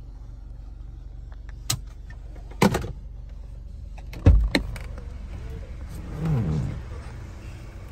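Several sharp knocks and bumps from a handheld camera being moved around a car's cabin, the loudest about four seconds in, over a steady low hum. Near the end there is a brief low sound that wavers in pitch.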